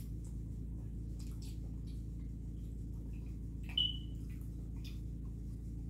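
Quiet eating sounds, faint chewing and mouth clicks, over a steady low hum. About four seconds in there is one short, high-pitched chirp.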